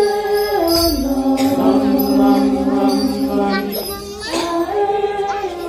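Javanese gamelan music accompanying a wayang orang dance: a voice sings long held notes that slide down and back up between pitches, over a few sharp percussion strokes.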